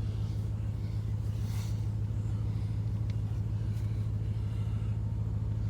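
A vehicle engine running at a steady speed, giving an even low drone.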